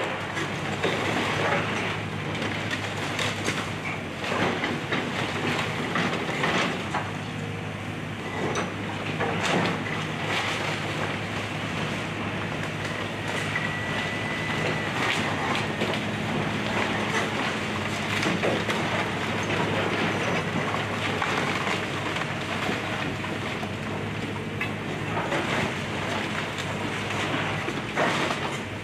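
Excavator's diesel engine running steadily while the machine breaks up house debris, with frequent cracking, crunching and clattering throughout and a brief squeal about halfway through.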